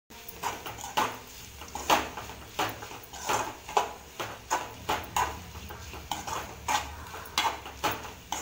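A spoon stirring sautéing brinjal, onion and tomato in a metal kadai, scraping and tapping against the pan in a steady rhythm of roughly two strokes a second.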